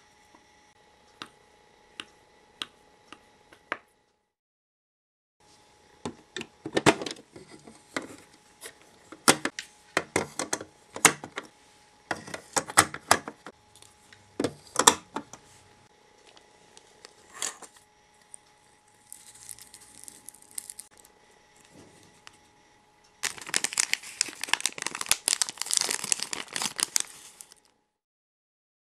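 Small plastic parts of a miniature toy sorbet kit handled by hand: scattered light clicks and taps as cups and trays are knocked and set down. Near the end, a few seconds of dense plastic-bag crinkling.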